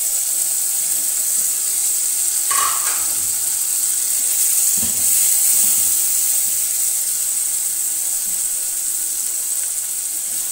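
Chopped tomatoes and spices frying in hot oil in a pot, a steady sizzle. A slotted spatula stirs through them, with a few light knocks against the pot.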